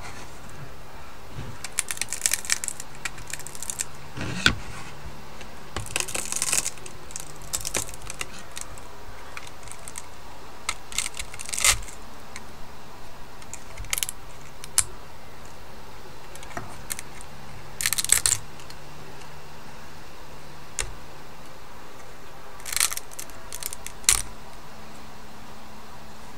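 Irregular bursts of snapping and crackling as white plastic is broken off a freshly 3D-printed model by hand (printed in Polymaker PolyMax filament), with short pauses between the bursts.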